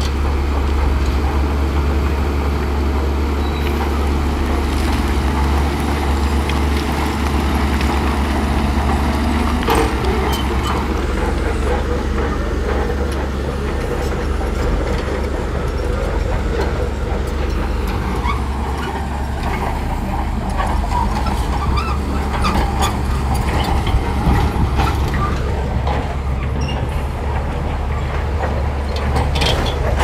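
Crawler bulldozers working: diesel engines running steadily under load, with the clank and rattle of steel tracks and scattered sharp knocks.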